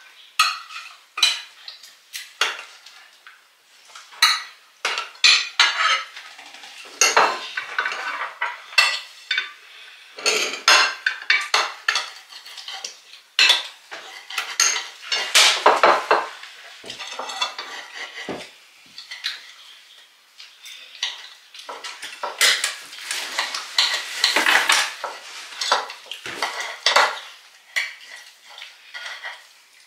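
Cutlery clinking and scraping against plates and dishes, in irregular short clatters throughout.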